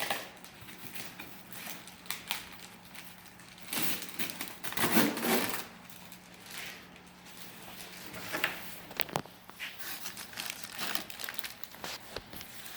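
Packaging being handled: plastic wrap crinkling and styrofoam rubbing, with scattered clicks and knocks, loudest about four to five seconds in.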